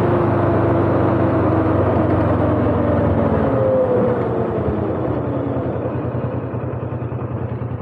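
Motorcycle engine running at road speed under a steady rush of wind noise. About four seconds in, the engine note falls away and the sound quietens a little as the bike eases off.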